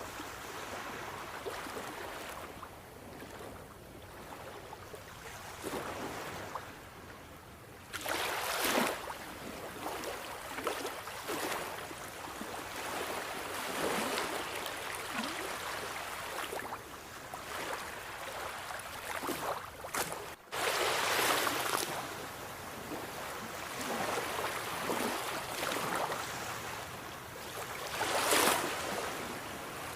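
Sea waves breaking and washing on a shore in a steady hiss, with louder waves breaking about a quarter of the way in, about two-thirds in, and again near the end.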